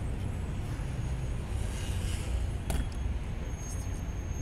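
Steady low rumble of city traffic, with one sharp click about two and a half seconds in.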